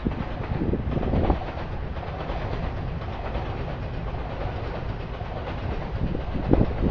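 Steady low rumble of city traffic at a busy crossing, with a louder knock about a second in and another near the end.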